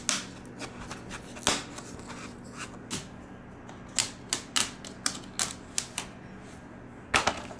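Utility knife scoring a thin vinyl flooring plank and the plank cracking as it is snapped: about a dozen sharp, irregular clicks, coming quickest about four to six seconds in.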